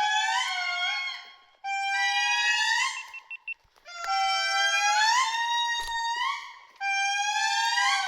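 Indris singing: loud, wailing notes that glide upward in pitch, several voices overlapping in chorus, in phrases broken by short pauses about a second and a half in, again near four seconds, and near seven seconds.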